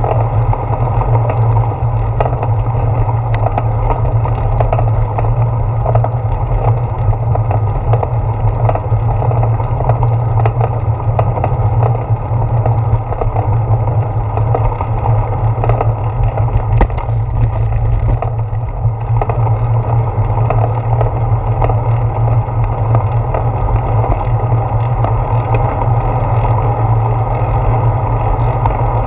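Bicycle riding along a concrete sidewalk, picked up by a handlebar-mounted GoPro Hero 4: a loud, steady rumble of tyre and handlebar vibration, with a few light knocks.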